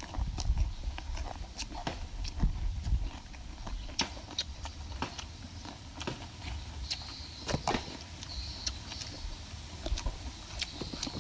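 Close-up chewing and crunching of raw vegetables and green papaya salad, with irregular crisp crunches and clicks.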